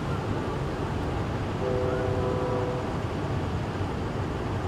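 Steady low rumble of engines and traffic, with a distant horn sounding once for a little over a second near the middle.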